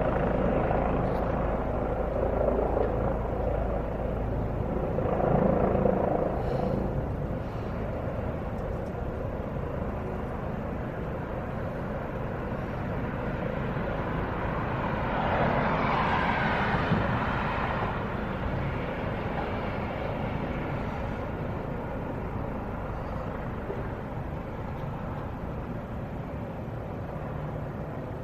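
Helicopter rotor and engine noise, a steady rumble that eases off after the first several seconds. A broader swell of noise rises and falls about halfway through.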